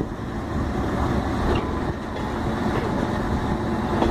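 Small diesel shunting locomotive running close by, a steady low engine sound mixed with the rumble of the wagon it is coupled to moving along the track.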